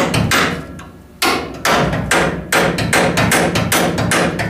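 Hammer blows on a punch driving against the rusted U-bolts and bracket of a 1966 Ford F-100's rear axle, about three sharp metallic strikes a second with a short pause about a second in. It is an attempt to beat the seized U-bolts loose.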